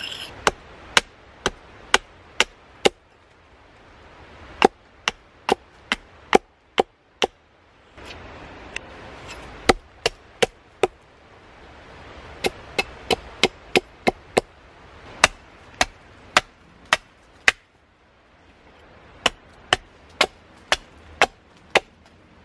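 Small axe chopping into a green wooden stake laid against a log, carving out a notch: sharp woody chops in runs of four to seven strokes, about two a second, with short pauses between the runs.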